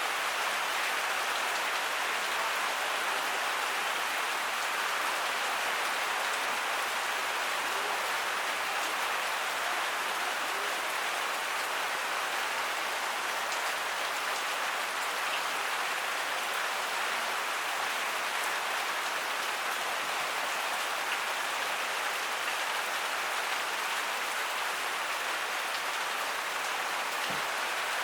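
Heavy rain falling steadily, an even hiss of rain hitting surfaces with no thunder.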